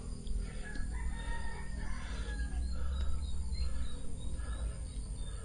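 Steady low rumble of wind on the microphone, with short chirping bird calls over it.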